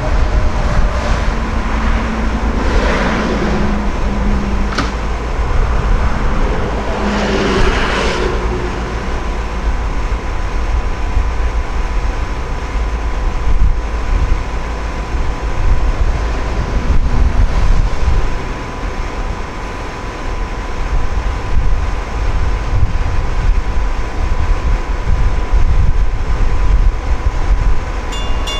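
Diesel-hauled train running, a steady heavy low rumble, with two brief louder sounds about three and eight seconds in.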